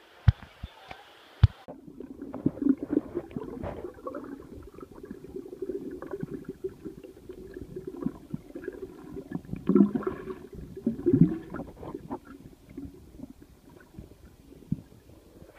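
A few sharp clicks, then from about a second and a half in, muffled underwater sound: bubbling and gurgling from a snorkeler breathing out through a snorkel and swimming, with scattered knocks. The gurgling is loudest around ten and eleven seconds in.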